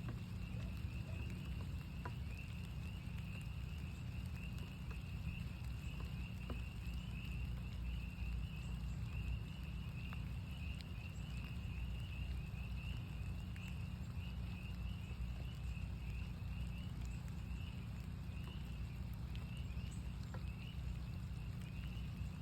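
A chorus of northern spring peepers, many overlapping high, short peeps packed close together without a break, over steady rain with scattered drop ticks and a low rumble.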